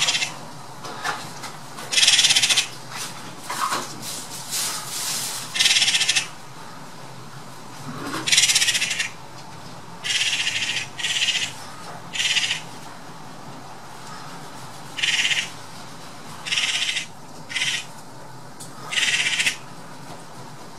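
Eurasian magpies giving harsh chattering rattle calls, a dozen or so short bursts at irregular intervals, typical of magpie alarm chatter at a predator.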